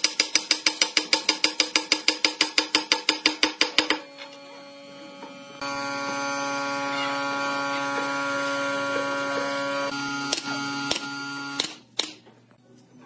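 Rapid even clicking, about seven a second, stops about four seconds in. After a short pause a corded power drill runs steadily at one pitch for about six seconds, then stops with a few sharp knocks.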